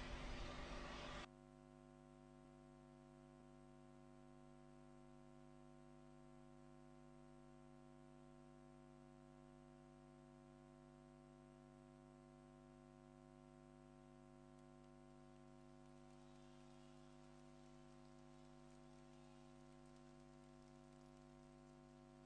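Near silence with a faint, steady electrical hum made of many even tones. A short burst of noise at the start cuts off about a second in.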